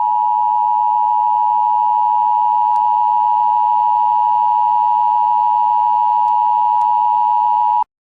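Emergency Alert System attention signal: a loud, steady single tone near 1 kHz, held for about eight seconds and cutting off abruptly near the end.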